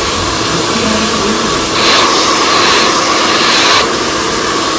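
Hair dryer running, a loud steady blowing with a motor hum underneath, the airflow hissing harder from about two to four seconds in.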